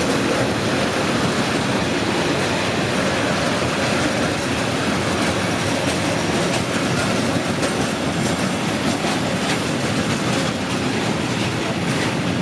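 SBB Cargo freight train rolling past, a steady rumble and clatter of its wagon wheels on the rails, with faint clicks over the track.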